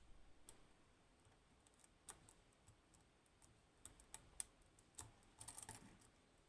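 Faint, sparse clicks and ticks of a lock pick working the pins of an Assa 600 pin-tumbler lock under tension, with a quick run of small clicks a little after five seconds in.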